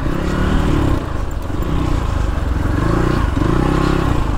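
Dirt bike engine working up a steep, rough trail climb, its revs rising and falling about once a second as the throttle is worked.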